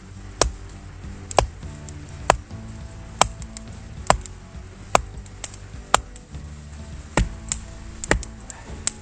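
Firewood being chopped by hand: sharp, single blows about once a second, slightly uneven in spacing, over steady background music.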